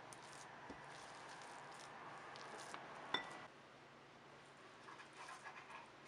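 Silicone spatula stirring thick, buttery semolina basbousa batter in a ceramic bowl: a soft, steady scraping, broken by one sharp tap with a brief ring about three seconds in, then lighter, scattered scrapes near the end.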